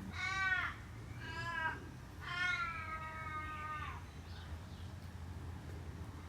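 An animal calling three times in a wailing voice, the third call long and drawn out and falling slightly at its end, over a steady low hum.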